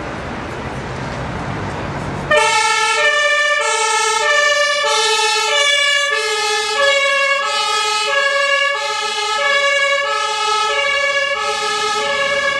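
A steady rushing noise for about two seconds, then an emergency doctor's van's German two-tone siren (Martinshorn) starts abruptly. It alternates between a lower and a higher tone about every two-thirds of a second.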